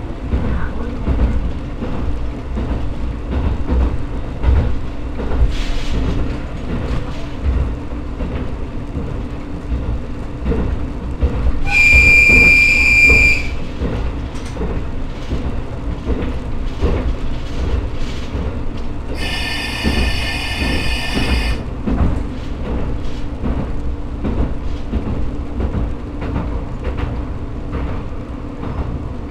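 Diesel railcar running along the line, heard from the driver's cab: a low steady rumble with the clatter of wheels over rail joints. Two short high-pitched tones cut through, the first a single clear tone a little before halfway and the second a fuller, chord-like one about two-thirds through.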